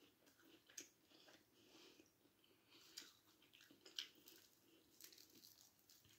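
Faint chewing of a mouthful of flaky-pastry festive bake, with a few soft crackles, the clearest about three and four seconds in.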